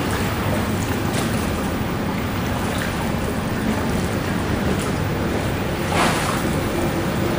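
Water washing and splashing with wind buffeting the microphone, in a steady low rush, with one brief louder splash about six seconds in.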